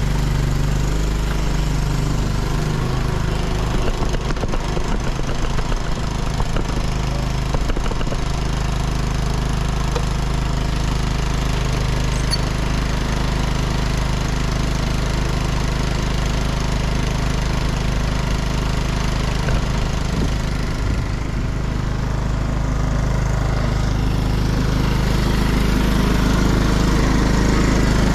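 John Deere lawn tractor engine running steadily, with a constant low hum, getting a little louder near the end.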